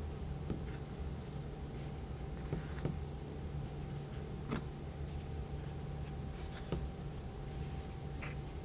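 Faint rustles and soft taps of fabric strips being lifted, flipped back and laid down on a cutting mat, about half a dozen scattered through, over a steady low room hum.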